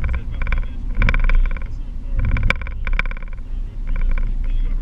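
Car driving at road speed, its engine and tyre noise heard as a steady low rumble inside the cabin, with short buzzing sounds recurring about once a second.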